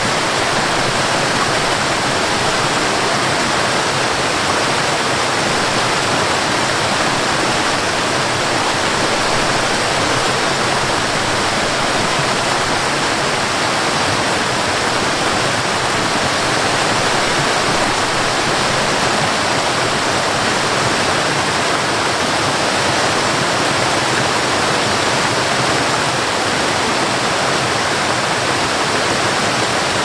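Waterfall: water cascading down rocks in a steady, even rush.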